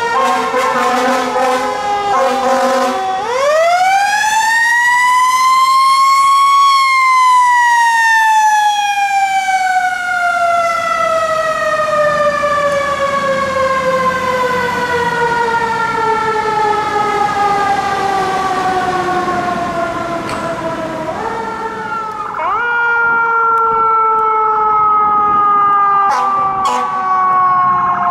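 Fire engine's mechanical siren: at first its wail is falling, then about three seconds in it winds up to a high peak and coasts slowly down over some fifteen seconds. Near the end it is wound up again and starts another slow fall.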